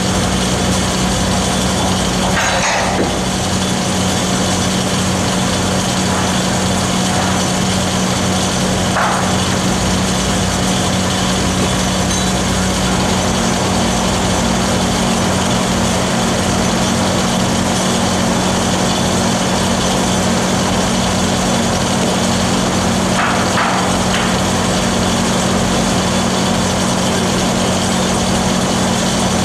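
Stick (shielded metal arc) welding on a large-diameter steel pipe joint: a steady crackle and hiss of the arcs, with the constant drone of engine-driven welding machines underneath.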